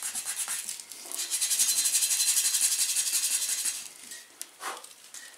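Sandpaper rubbed rapidly back and forth by hand on the painted steel of a propane bottle, scouring off the paint. The strokes come in two spells, with a brief pause about a second in, and stop a little before four seconds in.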